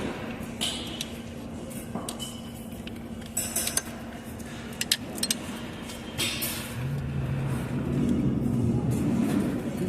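Metal tools and engine parts clinking and clicking as they are handled, several sharp clinks in the middle, over a steady low hum. A low drone comes in about two-thirds of the way through.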